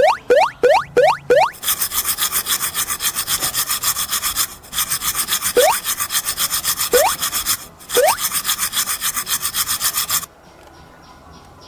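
Added sound effects: a fast back-and-forth rasping at several strokes a second, in three stretches with brief breaks, and quick rising blips: four in a row at the start and a few more scattered through.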